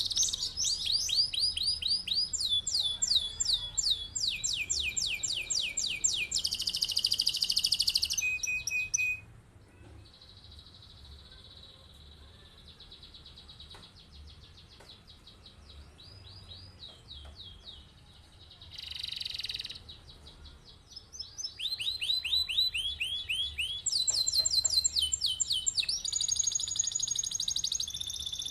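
Canary singing a long, energetic song of rapid rolls and trills, each phrase a quick run of repeated high notes. The song is loud at first, drops to a soft, low-volume warble through the middle, then comes back strong near the end.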